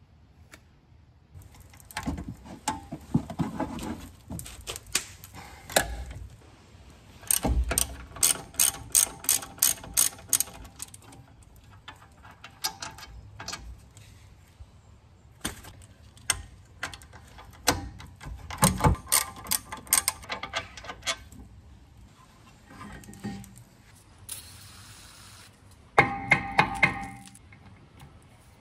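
Hand ratchet clicking in quick runs of about four clicks a second, with scattered metal knocks, as an E18 external Torx socket turns the rear brake caliper bracket bolts; a short burst of louder clicks comes near the end.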